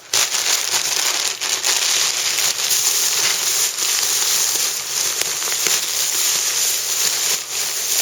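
Loud, steady rustling and crinkling with many small crackles: packaging being pulled open and handled as a box is unpacked.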